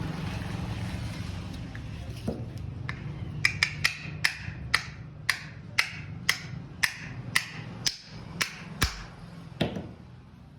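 A run of about fourteen sharp, evenly spaced taps, roughly two a second, each with a short ring, like a small hammer tapping a part into place. They play over a steady low hum and stop shortly before the end.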